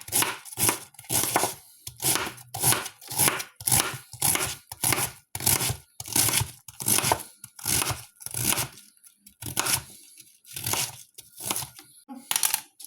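Knife slicing through a head of cabbage, finely shredding it: crisp, crunchy cuts at about two to three a second, becoming fewer and more spaced out over the last few seconds.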